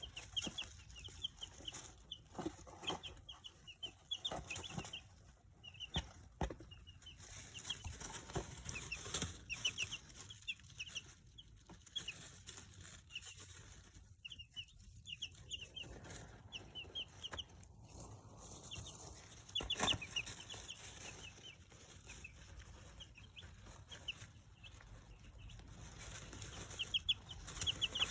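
Two-week-old chicks peeping in quick runs of short, high chirps, with scattered sharp taps in between.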